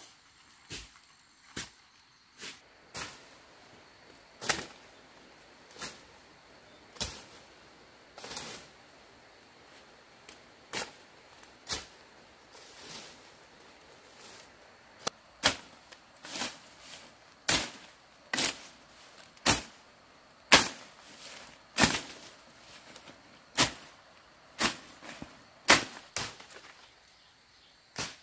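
Sharp woody knocks and cracks at irregular intervals, about one a second, getting louder and more frequent in the second half: branches and bamboo being chopped and broken.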